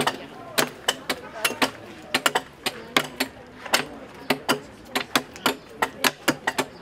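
Irregular sharp clicks and knocks, about three a second and often in quick pairs, with voices faintly behind.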